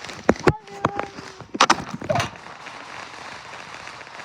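Several loud, sharp cracks, some in quick pairs, with a brief steady tone about a second in.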